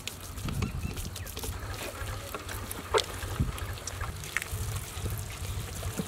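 Gloved hands rubbing thick, wet masala paste into raw whole chickens in a large metal tub: irregular squelching and handling noise with scattered small clicks, and one sharper click about three seconds in.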